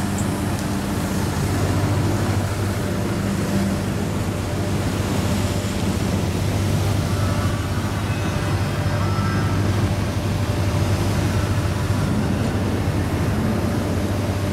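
Steady low engine hum under an even rushing noise, unchanging throughout.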